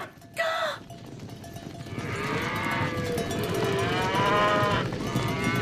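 Cartoon cows mooing: one short moo near the start, then long, drawn-out moos overlapping from about two seconds in, over a steady clatter.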